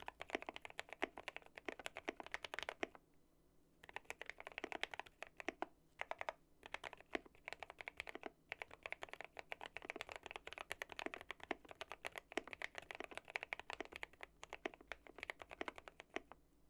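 Fast typing on a modded GMMK Pro mechanical keyboard with linear switches on a PE-foamed polycarbonate plate, a dense run of keystrokes bottoming out. It pauses for about a second near the 3-second mark, breaks briefly twice more, and stops just before the end.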